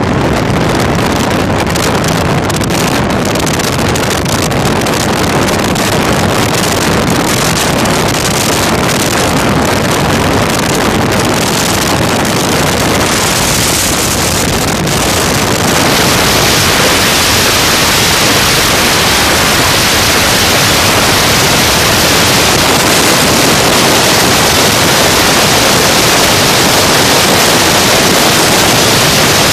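Heavy wind buffeting the microphone over the rush of water and the running of a Mercury Pro Max 300 outboard on a powerboat at speed. A little over halfway through the buffeting settles into a steadier, hissier rush.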